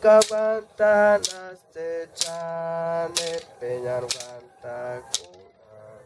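A wooden musical bow's string played in about eight short notes, each starting with a sharp click and ringing on one tone, the pitch shifting from note to note.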